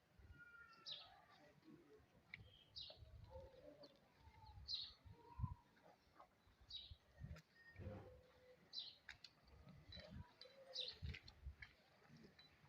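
Small birds chirping faintly, short high chirps repeating every second or two, over faint low rumbling.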